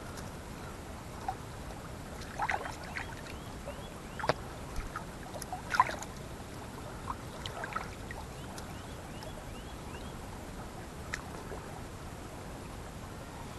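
Stream water running steadily, with a few short splashes and sloshes as a hand works in a landing net holding a rainbow trout, unhooking it in the water.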